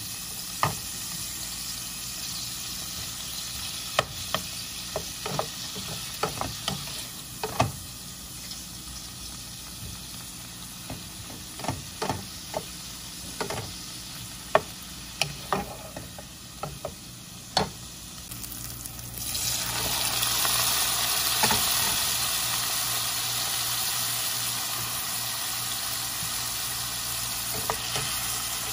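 Shrimp sizzling in hot oil in a nonstick pot while a wooden spatula stirs them, knocking and scraping against the pan in scattered sharp clicks. About two-thirds of the way through, the sizzle suddenly grows louder and fuller and stays that way.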